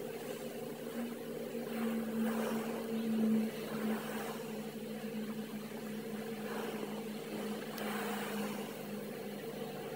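Small coastal cargo ship's diesel engine running with a steady low hum, a little louder about two to three seconds in.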